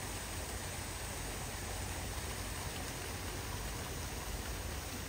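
Steady outdoor ambient noise: an even rushing hiss with a low rumble underneath and no distinct events.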